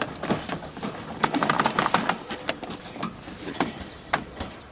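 Folding wire dog cage rattling and clanking as it is pushed and shoved into a car's cargo area: a dense metallic clatter about one and a half to two seconds in, then a few separate clanks near the end.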